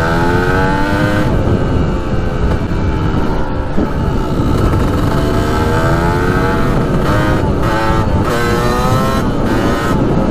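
1993 Kawasaki KDX200's single-cylinder two-stroke engine running under way, its pitch climbing as it revs, dropping back and climbing again several times as the bike accelerates. A dense low rumble of wind noise on the microphone lies under it.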